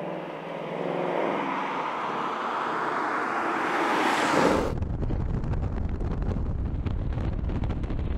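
Ford Mustang GT's 5.0-litre V8 exhaust as the car drives toward and past, its note rising and loudest as it goes by about four seconds in. Then, abruptly, the V8 is heard close beside the moving car as a low exhaust rumble with wind on the microphone.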